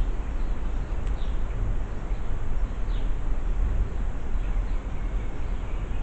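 Steady low rumbling background noise, with faint short high chirps about once a second.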